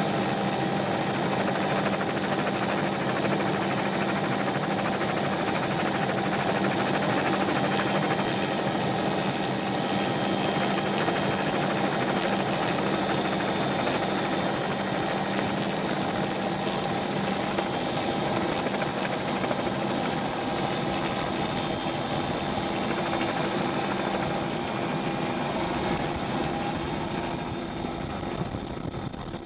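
Steady hum and whine of a multirotor drone's electric motors and propellers, heard through the camera it carries; it eases slightly near the end.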